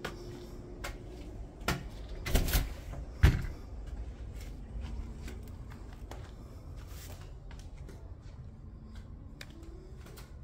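Front door being unlatched and swung open: a few clicks and knocks from the latch and handle about two seconds in, the sharpest just after three seconds, then a low steady room tone.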